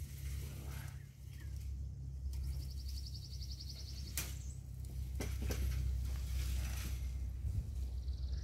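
A metal-framed chain-link dog kennel panel being lifted and stood up, its frame giving a few sharp clanks and rattles about four and five seconds in, over a steady low rumble. A rapid high trill sounds a couple of seconds in and again near the end.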